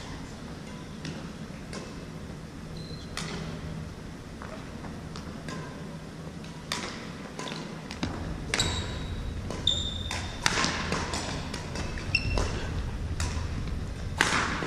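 Badminton play on a wooden gym floor: sharp racket strikes on the shuttlecock, thudding footsteps and short sneaker squeaks. It is sparse at first and becomes a busy rally from about seven seconds in.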